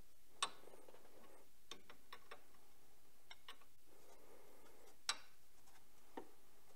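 Scattered light clicks and taps from tightening the diesel injector hard-line fittings by hand and tool, with two sharper clicks, one about half a second in and one about five seconds in.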